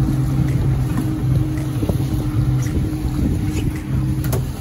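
Boat engine running with a steady low hum, over wind and water noise, with a short sharp click near the end.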